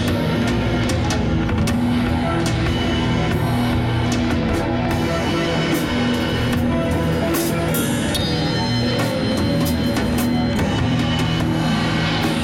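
Heavy rock drumming on a full drum kit, with frequent sharp drum and cymbal hits, over sustained guitar.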